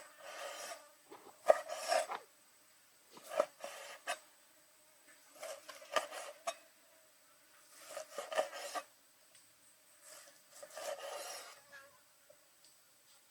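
Rough scraping or rasping strokes in five short bouts a couple of seconds apart, with light clicks among them.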